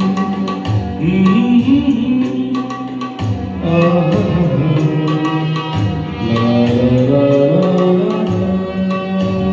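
Ghazal accompaniment: tabla keeping time under a gliding melodic line with a steady low drone.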